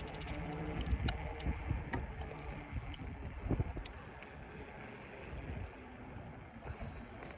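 Bicycle rolling along: tyre rumble and wind on the microphone, with a few sharp clicks and rattles in the first half.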